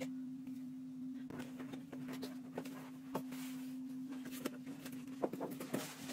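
A steady low hum, with scattered light clicks and taps from hands handling and fitting rubber balloons.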